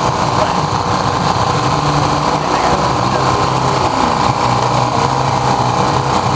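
A small motor running steadily, with a low hum and a higher whine that hold their pitch throughout.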